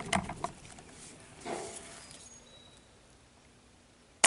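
A few light clicks, then quiet, and near the end the sudden sharp shot of a Benjamin Fortitude .22 PCP air rifle firing, a short report that dies away quickly. The shot is very quiet for an air rifle.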